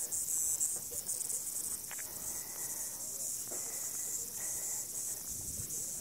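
Chorus of many cicadas singing during a mass emergence: a steady, high-pitched hiss.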